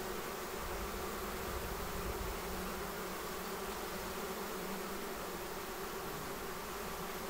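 Steady buzzing hum of a honey bee swarm clustering on the front of a hive and filing in at the entrance.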